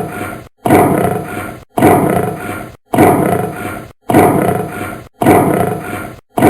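A recorded animal roar played as a loop: the same short call repeats about once a second, six times, each starting sharply and fading, with dead silence between.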